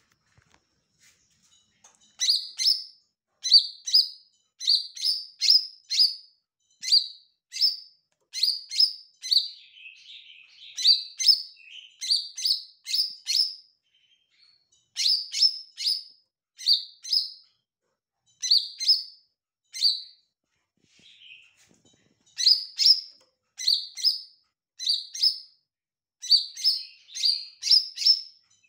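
Green leafbird (cucak ijo) singing: phrase after phrase of quick, sharp, high chirping notes starting about two seconds in, with a few short pauses and a softer twittering passage in between.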